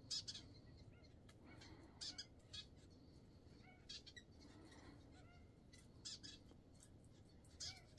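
Faint birdsong: about six short bursts of high chirping notes, a second or two apart, over a faint steady low rumble.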